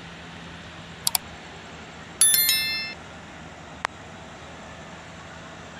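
Subscribe-button animation sound effect: a quick double mouse click, then a bright bell ding ringing for under a second, and one more short click, over a faint steady hum.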